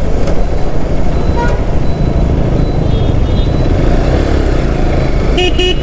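Hero XPulse 200 4V motorcycle's single-cylinder engine running steadily on the move, mixed with wind rushing over the helmet-mounted microphone. A brief higher-pitched tone sounds near the end.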